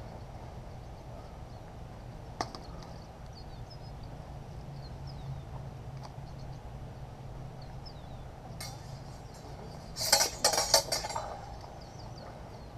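Steel practice swords clashing in sparring. A single clink comes a couple of seconds in, then a quick flurry of several sharp metallic strikes about ten seconds in.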